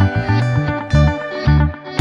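Background music: plucked guitar over a steady, punchy bass beat.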